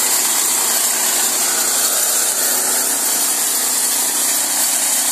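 Small engine of a T16 walk-behind brush-clearing machine running steadily as the machine is pushed through undergrowth, cutting brush.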